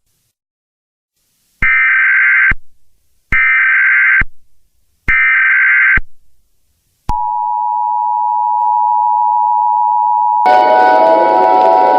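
Emergency Alert System SAME header: three identical bursts of warbling digital data tones, each just under a second long, sent to open a new alert. About seven seconds in, the EAS attention signal starts, a steady two-tone 853/960 Hz beep. Near the end a harsher, noisy layer with gliding pitches joins over it.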